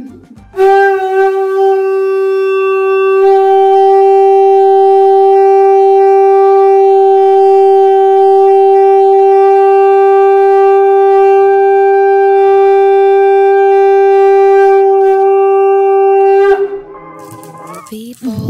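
Conch shell (shankh) blown in one long, steady, loud note lasting about sixteen seconds, starting about half a second in and cutting off near the end, as is done at a Hindu puja.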